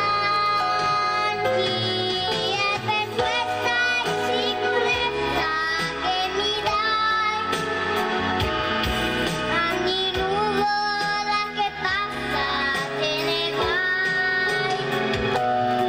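A female voice sings a melody with vibrato over instrumental backing, with sustained bass notes that change every few seconds.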